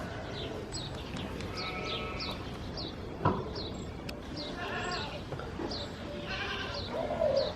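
A herd of goats and sheep bleating, with about three clear bleats, over a run of short high chirps and one sharp knock midway.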